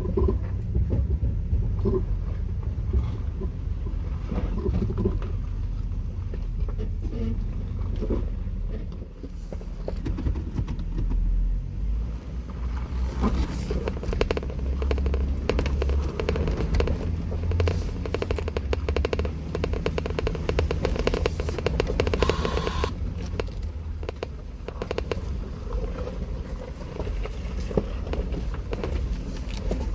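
Jeep Wrangler crawling over rocks on an off-road trail: the engine runs low and steady under the crunching and scraping of tyres on rock.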